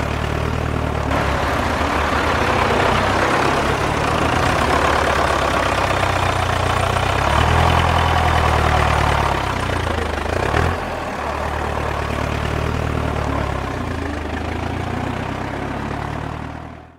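Tractor engine running steadily with a low, even rumble. It grows somewhat louder in the middle, eases back, and then fades out near the end.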